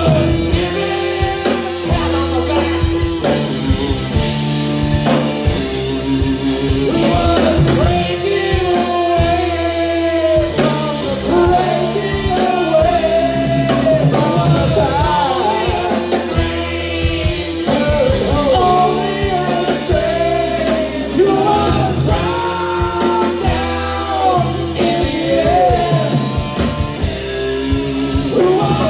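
Live rock band playing: a lead vocal sung over drum kit, electric guitar and keyboards.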